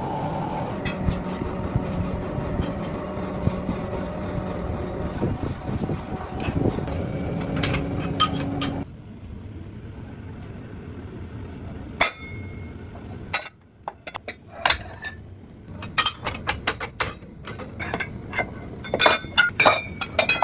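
Workshop machinery running loudly and steadily with rattling and clicking. About nine seconds in it cuts off abruptly, and a series of sharp metallic clinks and knocks follows over a quieter background, thickest near the end.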